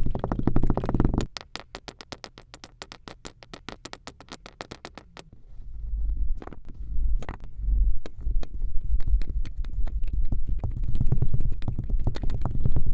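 Kinetic sand being cut or crumbled: a quick run of crisp crunching clicks, about ten a second, over the first five seconds. Low rumbling and thudding from handling take over after that.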